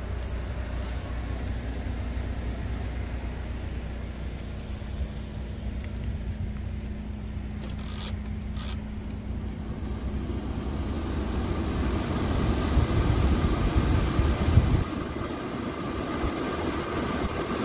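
Scania R450 truck's 13-litre straight-six diesel idling as a steady low rumble in the cab. A couple of dashboard button clicks come about eight seconds in, and then a rush of air from the cab ventilation blower builds up.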